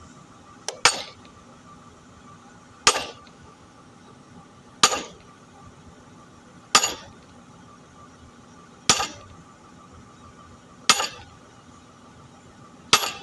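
A hammer striking metal, one sharp clink about every two seconds, each ringing briefly. The first blow comes as a quick double strike.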